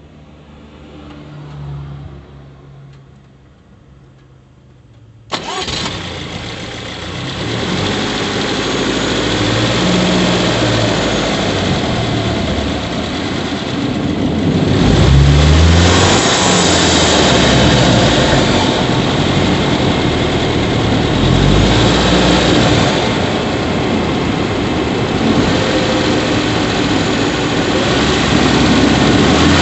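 Subaru Levorg 1.6GT-S's 1.6-litre turbocharged flat-four engine starting about five seconds in, then running with its idle speed rising and falling.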